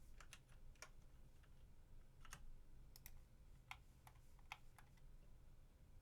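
Faint, irregular clicks of computer keyboard keys being typed, a dozen or so scattered keystrokes.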